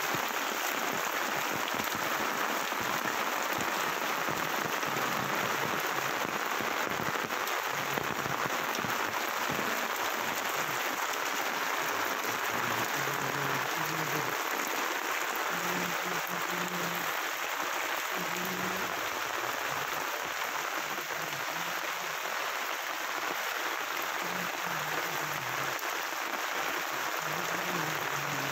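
Heavy rain falling onto a flooded street, a steady hiss of drops hitting standing water.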